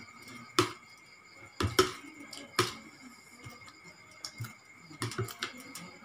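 Eating sounds from a plate of seafood papaya salad eaten by hand: a scatter of sharp clicks and smacks, loudest around two seconds in, with a quick cluster near the end.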